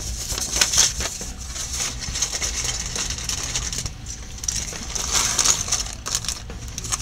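Paper instruction sheet rustling as it is handled and laid into a cardboard box, then a clear plastic bag of model-kit parts crinkling under the hand, with the loudest crinkles about five seconds in.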